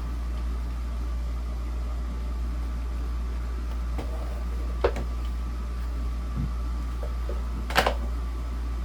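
A few sharp clicks and knocks from handling a desk fan's front guard and screwdriver while fitting its screws, one about five seconds in and the loudest near the end, over a steady low hum.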